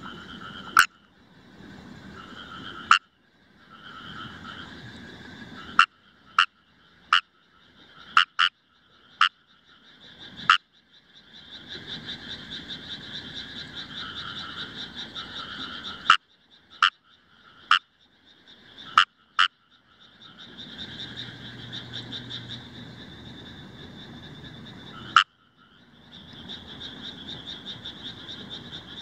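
Kawamura's rice frogs (Fejervarya kawamurai) calling in a paddy: stretches of rapid pulsed croaking that rises and falls. About fifteen loud, sharp clicks are scattered through it, each followed by a short hush.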